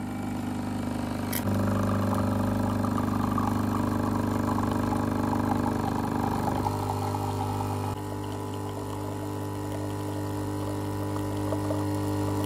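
Nescafé Dolce Gusto capsule coffee machine's pump humming steadily as it brews coffee into a mug. A click about a second and a half in, after which the hum gets louder.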